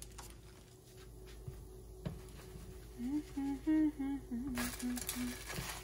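A woman softly humming a tune, starting about halfway through, with a brief burst of hiss for about a second near the end.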